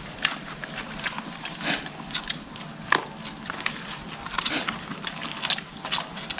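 People eating fish and rice with their hands: irregular soft smacks and clicks of chewing and picking at food, a few a second, with no steady rhythm.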